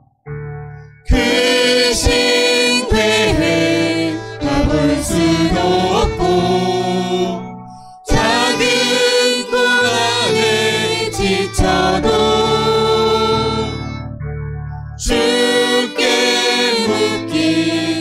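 Church praise team singing a Korean worship song, a woman's and men's voices together over instrumental accompaniment, in sung lines with short breaks between them.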